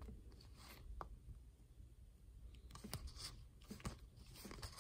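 Baseball trading cards being flipped through by hand: soft, faint slides and ticks as cards are pushed off the stack and slipped behind one another, a few at a time.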